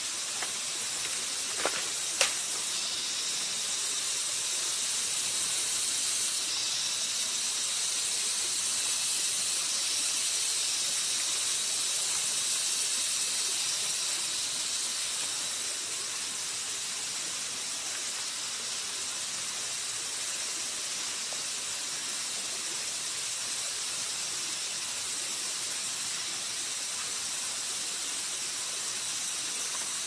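A steady, high-pitched insect drone from the forest, swelling slightly and easing off again, with two sharp knocks about two seconds in.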